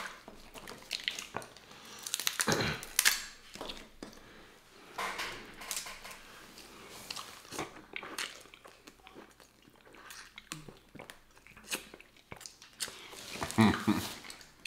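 Snow crab leg shells cracking and being pulled apart by hand, with close-up chewing of the crab meat, in irregular crunches and clicks.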